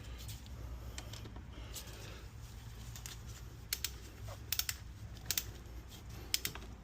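Light, sharp clicks and taps of small metal parts and hand tools being handled while motorcycle wheel parts are refitted, some coming in quick pairs and triplets, over a low steady hum.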